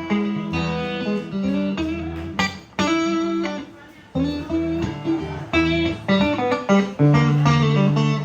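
Solo guitar picking single notes and chords, with a short lull a little before the middle.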